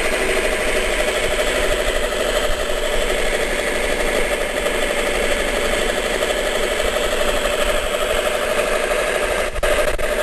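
Homemade scroll saw driven by an electric jigsaw running steadily, its blade reciprocating with a continuous mechanical buzz, with a short dip near the end.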